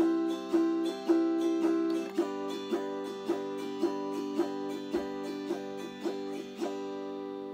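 Autoharp strummed in a steady rhythm, about two strums a second. The chord changes about two seconds in, and the last strum, a little before the end, is left to ring out and fade.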